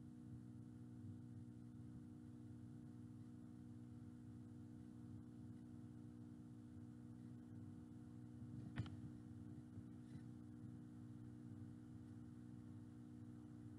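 Near silence with a faint steady hum, broken about nine seconds in by one sharp knock of the stirring spoon against the metal cooking pan, and a fainter one a second later.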